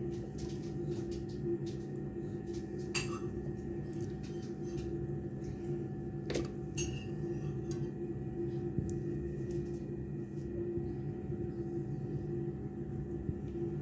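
A steady low electrical hum, with a few light clicks and taps as hands turn a raw whole duck on a paper plate.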